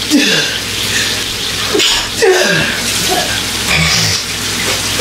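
A woman sneezing several times in a row, short sudden bursts each falling in pitch, set off by the spice seasoning she has just shaken over the burgers.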